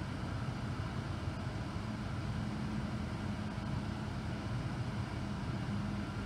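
Idling car heard from inside the cabin: a steady low hum, even throughout.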